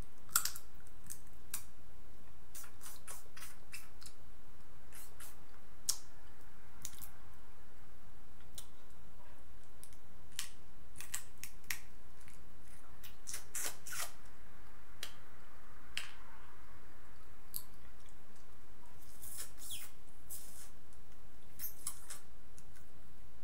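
Close-miked eating sounds from a seafood boil eaten by hand: irregular sharp lip smacks and wet mouth clicks, several a second in clusters, over a steady low hum.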